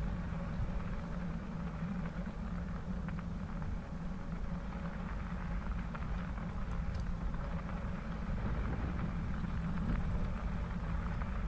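A bicycle rolling steadily along a wet crushed-limestone trail: tyre and riding noise over a steady low rumble.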